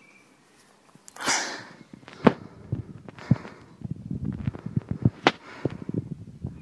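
Handling noise on a handheld digital recorder as it is about to be stopped: a brief rustle about a second in, a few sharp clicks, then a dense run of dull low knocks and rubbing from about four seconds on.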